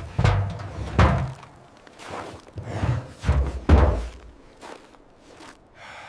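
A series of about five heavy, dull thuds over the first four seconds, irregularly spaced, two of them close together near the middle; after that it is quieter.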